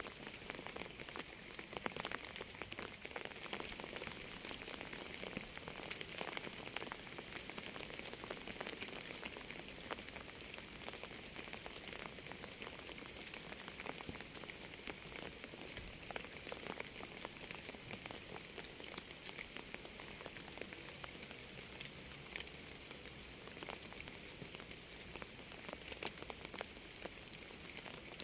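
Steady rain falling, many single drops ticking sharply over a constant hiss.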